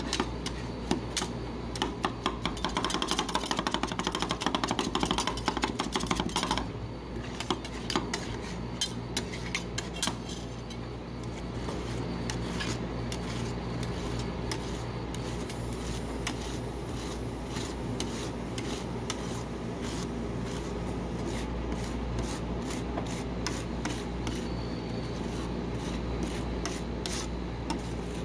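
Steel spatulas chopping and scraping ice cream mixed with Fruity Pebbles cereal on a frozen steel cold plate: rapid sharp taps for the first six or seven seconds, then steady scraping as the mix is spread thin across the plate. A steady low hum runs underneath.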